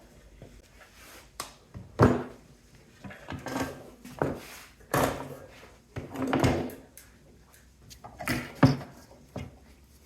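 Irregular knocks, clunks and scraping of metal parts and hand tools as a cooling unit is taken apart for scrap, with a few sharper knocks among them.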